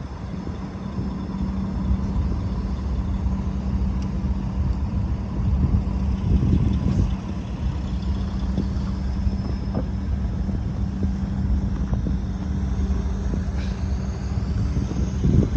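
Chevrolet Avalanche pickup's V8 engine running steadily at idle, a constant low hum.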